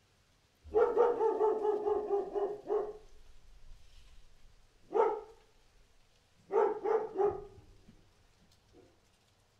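A dog barking: a quick run of barks for about two seconds, then a single bark, then three barks in quick succession and a faint last one near the end.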